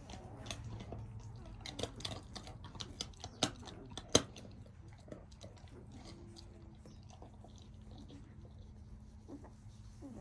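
A dog gnawing on a bone: irregular crunching and cracking clicks, the sharpest about four seconds in.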